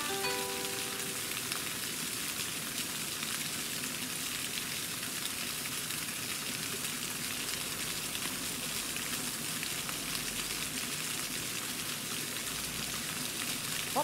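Steady splashing of a small fountain jet falling into a garden pond: an even, unbroken rush of water.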